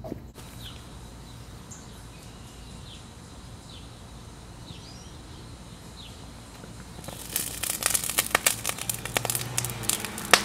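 Molten aluminum poured from a crucible into a Delft-clay casting mould packed in a cardboard box, setting off a dense run of loud, sharp crackling and spitting that begins about seven seconds in. Before that, only a faint outdoor background with a few short bird chirps.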